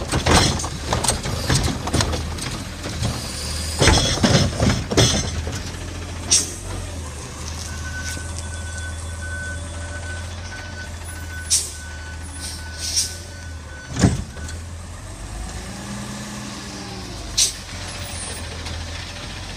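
Garbage truck's Curotto-Can arm tipping and shaking a plastic cart into the front can, with a rapid run of banging and slamming in the first five seconds. After that the truck's engine runs steadily, with several short sharp air-brake hisses and a steady high whine for a few seconds in the middle.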